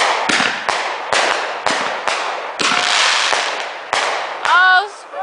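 Fireworks going off: a rapid, irregular string of sharp bangs, about two a second, each followed by a short fading hiss. A person exclaims near the end.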